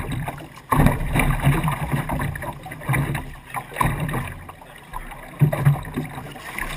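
Lake water lapping and slapping against a wooden race boat's hull, in irregular uneven surges.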